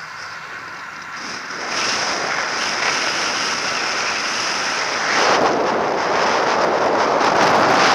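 Airflow rushing over the onboard camera of a radio-controlled model plane in flight. It gets louder about two seconds in and again about five seconds in, as the model banks and picks up speed.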